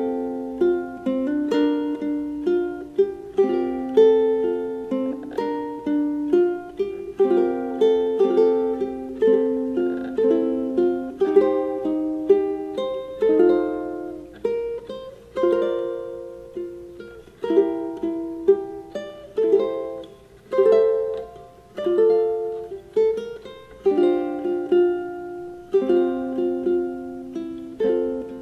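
Solid-top Locomango TU-300s ukulele played solo, a steady run of plucked notes and strummed chords that ring and fade.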